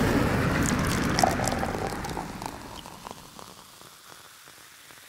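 Sound effect of an animated logo: a noisy rush that fades away over about three seconds, sprinkled with small crackling ticks, leaving only a faint hiss.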